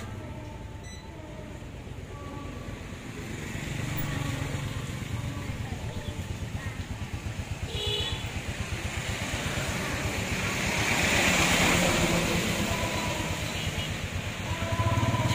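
Motor scooter engine running close by, its even beat growing louder through the middle and peaking about three quarters of the way in, with street traffic behind.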